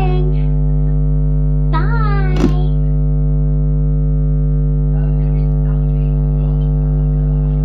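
Loud, steady electrical mains hum, with a brief voice sound about two seconds in.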